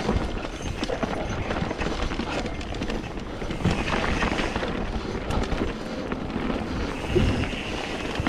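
Mountain bike riding down rocky singletrack: the tyres crunch over loose rock and gravel, with a run of small clicks and knocks from the bike over the bumps and a low rumble of wind on the microphone.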